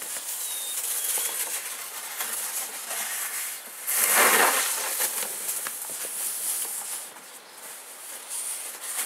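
Scoop shovel scraping and pushing heavy, wet, slushy snow, with scattered scrapes and knocks and one loud scrape about four seconds in.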